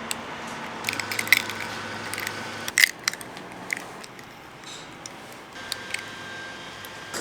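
A scatter of sharp clicks and clinks, the loudest a little under three seconds in, over a faint steady high tone that comes and goes.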